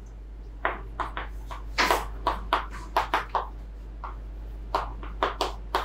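Chalk writing on a chalkboard: a quick, uneven run of short taps and scrapes as numbers and symbols are written, with a brief pause about two-thirds of the way through.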